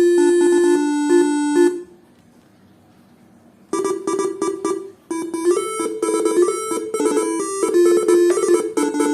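Faniatech R3 telolet basuri horn module playing its melody tones. One tune ends about two seconds in. After a pause of about two seconds the next tune starts: a quick run of buzzy stepping notes with a brief break about a second later.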